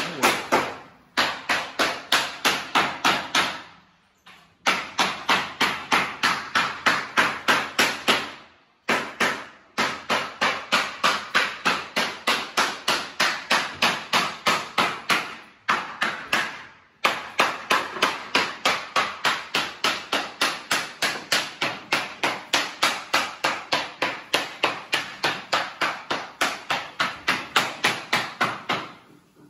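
Hammer blows in rapid, even runs of about five strikes a second, broken by a few short pauses.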